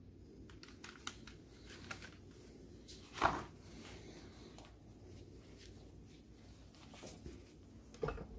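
Light clicks and knocks of hard plastic from handling a Renault Megane II steering-column combination switch assembly, with a louder knock about three seconds in and another near the end.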